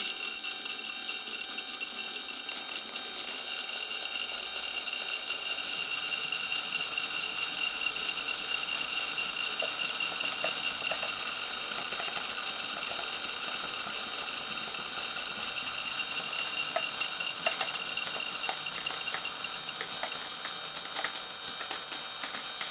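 Marbles rolling along a wooden marble run's tracks: a continuous rolling rumble with a steady ringing hum. From about two-thirds of the way in, a dense patter of quick clicks joins it as the balls knock against the track and each other.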